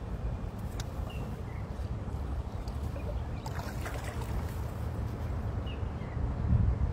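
Low wind rumble on the microphone, with light splashing and sloshing of shallow stream water as someone wades and gropes among rocks. The rumble grows stronger near the end.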